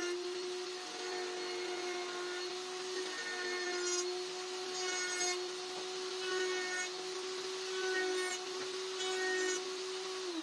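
A small power tool's motor running at a steady high pitch, with a harsher, higher sound coming and going every second or two as it works.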